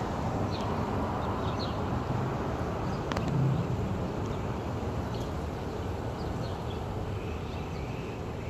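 Outdoor ambience: a steady low rumble like distant street traffic, with a few short bird chirps and occasional light clicks, and a brief low swell about three and a half seconds in.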